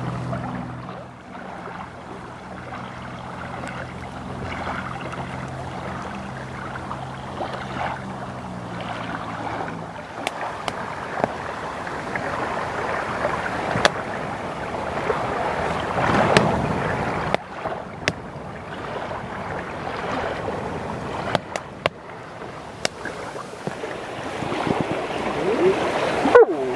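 Small waves lapping at the shore, with a steady low hum that fades out about ten seconds in. After that, scattered sharp pops of a wood campfire crackling.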